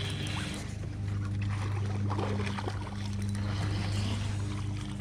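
Boat's electric trolling motor running with a steady low hum, fading near the end.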